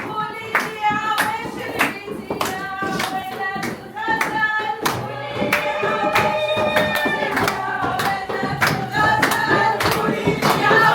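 Traditional Arab wedding song: several voices singing together over a steady drum beat of about two strokes a second.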